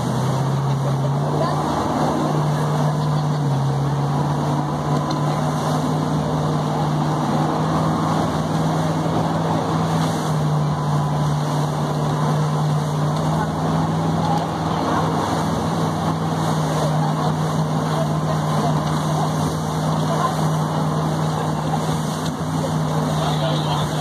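Boat engine running steadily at speed, under the rush of the churning wake and spray behind the stern.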